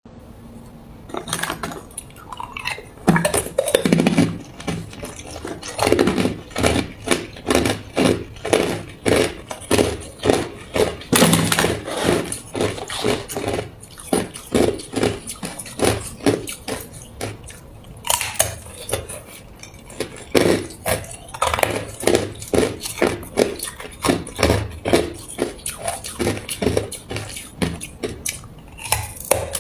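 A person biting and chewing hard white ice: a steady run of crisp crunches, two or three a second, broken by a few short pauses.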